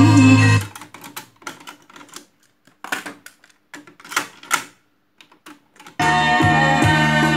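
Music playing from a Pioneer CT-W511R cassette deck cuts off suddenly, followed by a run of sharp clicks and clatter as the deck's keys are pressed and a cassette is lifted out of deck B's door and reloaded. Music starts again about six seconds in.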